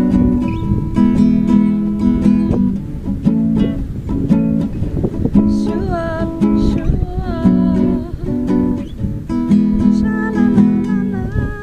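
Acoustic guitar strumming choppy chords in a reggae rhythm. A voice joins in with a few held, wavering sung notes about halfway through and again near the end.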